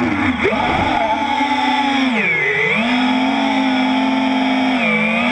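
FPV freestyle quadcopter's brushless motors and propellers whining, heard from the onboard GoPro Hero3+, the pitch swinging with the throttle: a quick rise early on, a deep dip about two seconds in as the throttle is chopped and brought back, then a steady hold with a small drop near the end.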